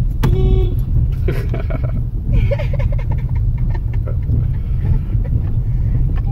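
Honda Civic driving over rough off-road ground: a steady low rumble from the car, with a few sharp knocks as it goes over bumps.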